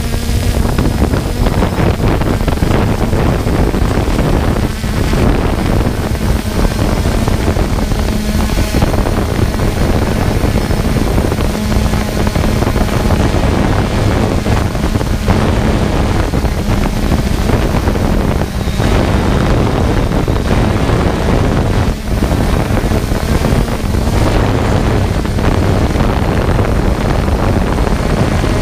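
A motor running steadily, heard as a constant drone under loud wind noise on the microphone.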